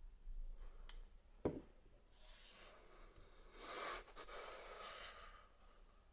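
A small vape mod with its RTA deck set down on a wooden desk with a sharp knock, after a faint click. About three seconds of soft, breathy noise follow.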